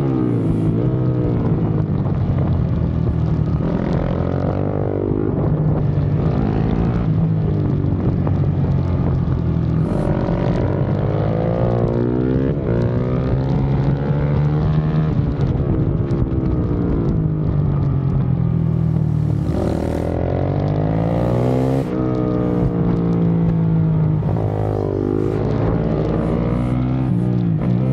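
KTM supermoto motorcycle engine, heard from the rider's seat, revving up and down over and over as it accelerates out of corners, shifts and slows for the next turn.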